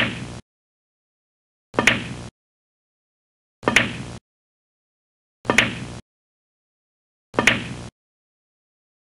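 The same short knock sound effect five times, about every two seconds, as an animated ball bounces off the cushions of a pool table. Each knock is a sharp click with a brief hissing tail that cuts off abruptly.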